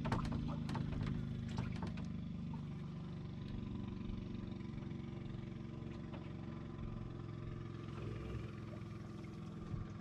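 A motor engine running steadily with a low hum. A handful of sharp clicks and knocks come in the first two seconds.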